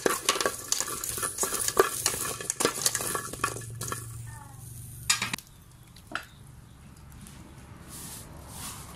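A spatula scraping and knocking against an aluminium wok, stirring whole chilies, garlic cloves and shallots as they roast in the dry pan. The clatter stops about five seconds in, leaving a faint, quiet background.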